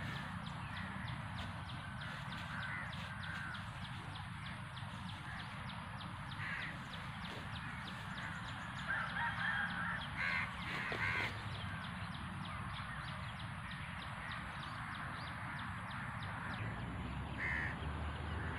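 Outdoor background with a faint, fast, even ticking and a few short bird calls, the clearest about a third of the way in and again near the end.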